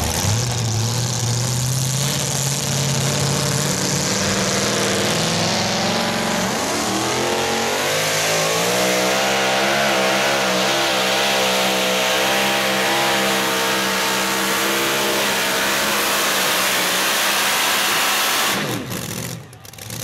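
Supercharged engine of a two-wheel-drive competition pulling truck, running steadily at first, then revving up about six seconds in and holding high, wavering revs as it drags the weight-transfer sled. Near the end the revs fall away and the engine goes quiet as the pull finishes.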